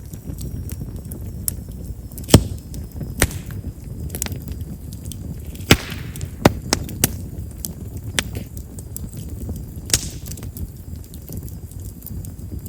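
Chestnut firewood burning in an open fire, crackling with sharp, scattered pops over a steady low rumble, the loudest pop about two and a half seconds in. Chestnut's large vessels make it a wood known for popping as it burns.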